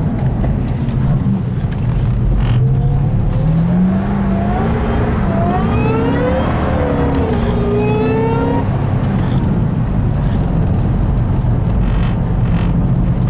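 Ford Shelby GT500's supercharged V8, heard from inside the cabin. The engine note climbs steadily in pitch under acceleration to a peak about six and a half seconds in, drops, holds for a couple of seconds, then settles into a steady drone of engine and road noise.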